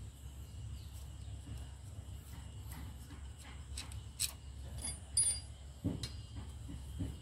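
Scattered light metal clicks and clinks from a hand tool and loose bolts on a brush cutter's engine being dismantled, with a sharper ringing clink about five seconds in and a duller knock just before six seconds, over a low steady rumble.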